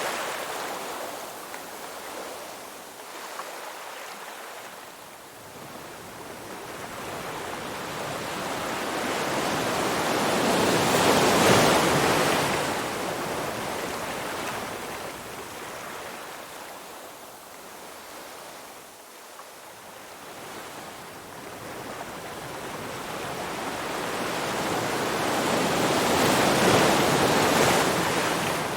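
Ocean waves breaking on a shore: two slow swells, one in the middle and one near the end, each building to a loud rush of surf and then washing back.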